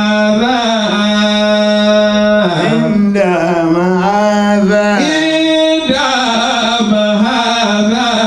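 A man chanting an Arabic devotional song into a microphone, holding long notes and ornamenting them with bending melismatic turns.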